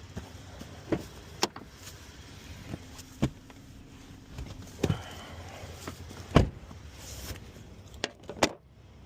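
A vehicle door being worked: a series of sharp clicks and knocks from the handle, lock and door, the loudest about six seconds in.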